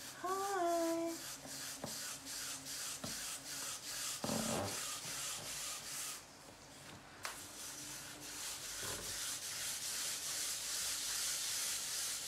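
Wet gloved hands rubbing and pressing a lump of stiff, cold black clay on a spinning Shimpo potter's wheel to center it, a wet slurry rub with a regular pulse about four to five times a second.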